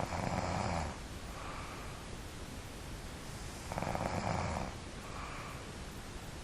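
A sleeping person snoring: two loud snores about four seconds apart, each about a second long and followed by a fainter, shorter breath.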